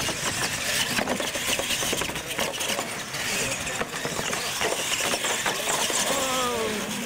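Two radio-controlled monster trucks racing across pavement, motors whining and big knobby tyres rumbling, with knocks as they run over the ramps and land. A motor whine falls in pitch near the end.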